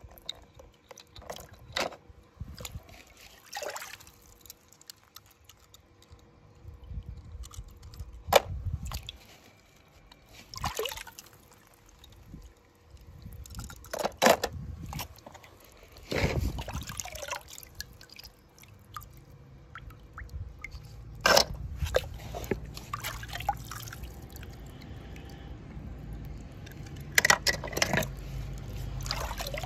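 Water splashing and dripping, with scattered sharp knocks and clicks and a low rumble building in the second half.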